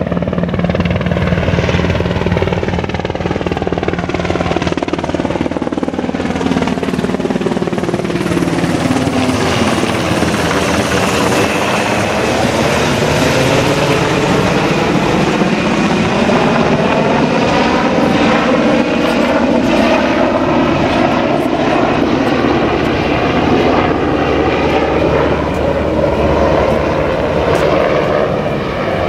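US Navy Black Hawk helicopter flying low overhead: steady, loud rotor and turbine noise. As it passes over about halfway through, the tone sweeps down and then back up.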